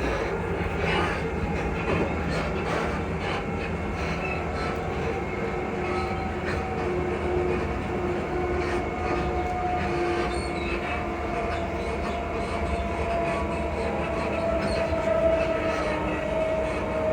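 Class 334 electric multiple unit heard from on board, running along the track with a steady rumble and scattered clicks. A motor whine slowly falls in pitch over the second half as the train slows.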